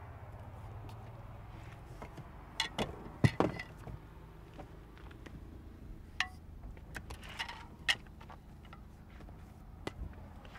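Tennis rackets and a racket case being handled and passed from hand to hand: scattered light clicks, clinks and knocks, the loudest cluster about three seconds in, over a low steady hum.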